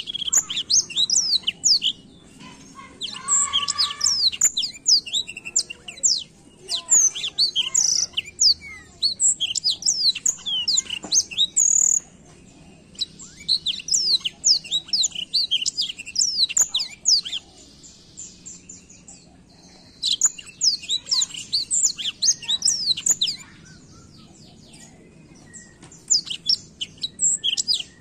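Black-throated canary singing: fast, twittering runs of rapid high sweeping notes, each run lasting a few seconds with short pauses between them.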